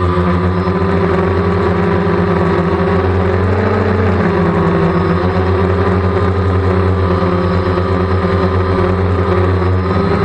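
DJI Phantom quadcopter's electric motors and propellers droning steadily, with a slight shift in pitch about four seconds in.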